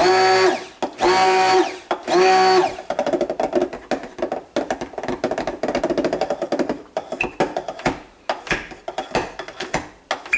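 Stick blender run in three short bursts, each a motor whine that starts and stops, then running unevenly in thick, fast-setting hot-process soap batter in a crock pot, with a run of quick knocks in the last few seconds. The batter is thickening quickly because of its high stearic acid content.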